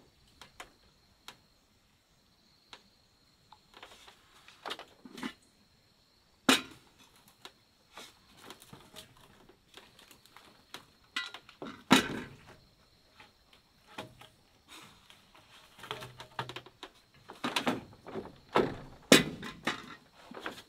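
Irregular knocks and thuds of hand work, sparse at first and busier toward the end, with sharp single strikes about six and twelve seconds in, over a faint steady high-pitched tone.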